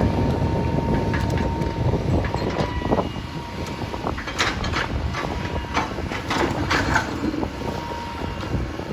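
Backhoe's diesel engine rumbling steadily, with a run of sharp metallic clanks and knocks in the middle seconds.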